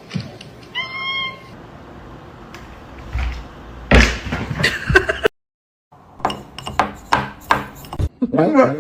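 A short cat meow about a second in, followed by a string of thumps and knocks, loudest around the middle.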